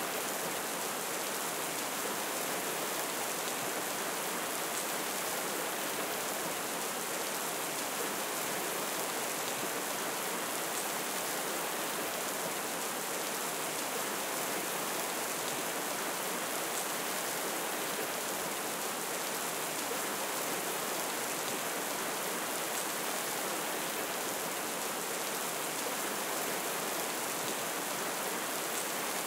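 Steady hiss of falling water, even and unbroken, bright with little low rumble.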